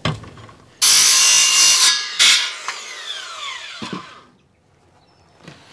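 Makita cordless circular saw starting up and cutting a 45° dog-ear corner off a 2x4 in about a second. The motor then winds down in falling pitch once the trigger is released, and there is a knock near four seconds in.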